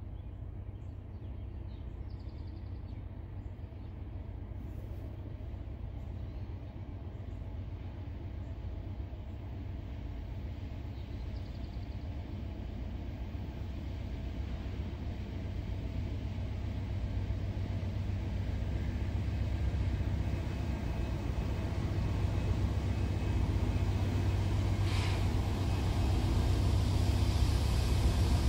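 Diesel engines of three GE locomotives leading a loaded grain train, a steady low drone that grows gradually louder as the train approaches.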